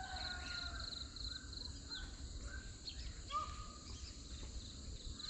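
Faint outdoor ambience: an insect chirping in quick pulses and a few short bird calls, one a little louder just past the middle.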